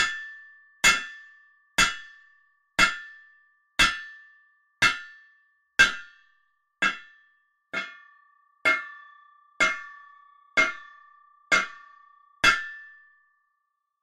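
Hammer striking metal fourteen times at a steady pace of about one blow a second. Each blow is a sharp clang with a ringing tone that dies away before the next. The blows stop about a second before the end.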